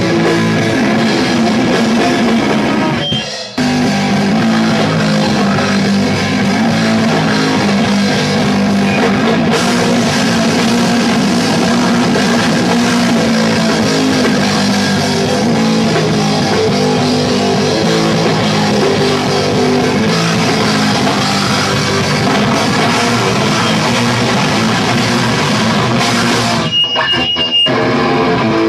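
Live rock band with electric guitar and drum kit, playing loud and continuous. The music breaks off briefly about three seconds in, and there are two short stops near the end.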